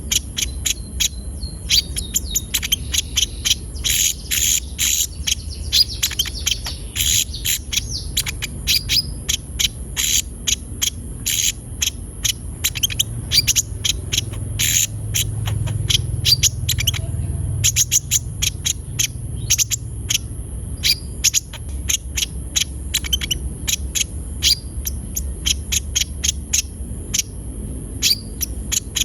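Konin sunbird singing persistently: a fast, unbroken stream of sharp, high chirps and twitters, over a steady high hiss.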